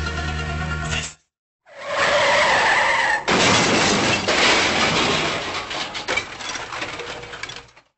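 Dubbed car-crash sound effects: a steady low engine hum that cuts off about a second in, then after a short silence a tyre screech of about a second and a half, followed by a long, loud skidding and crashing noise that stops abruptly near the end.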